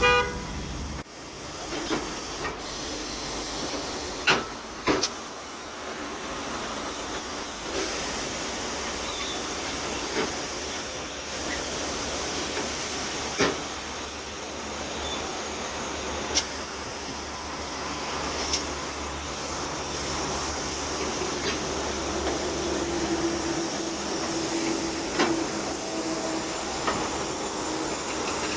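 Compressed air hissing steadily in a tyre workshop, as when a tyre is being inflated or let down. Sharp clicks and knocks come every few seconds.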